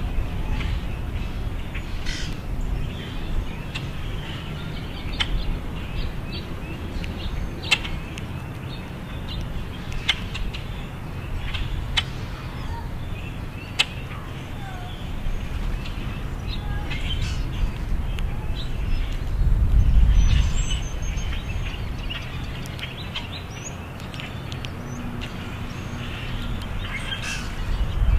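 Common grackles feeding and giving short, sharp chack calls every second or so, over a steady low rumble that swells for a moment about two-thirds of the way through.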